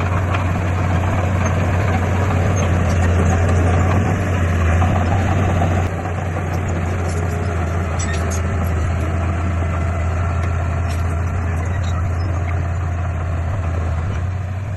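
Heavy diesel engine of earthmoving machinery running steadily with a strong low drone, a little louder for the first six seconds and then easing slightly.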